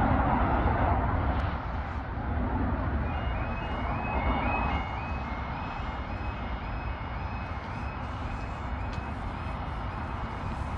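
Level crossing warning alarm, starting about three seconds in: a two-tone warble repeating steadily as the crossing lights switch from steady amber to flashing red, the sign that the crossing is closing for an approaching train. A louder rush of noise fills the first second or two, over a low rumble.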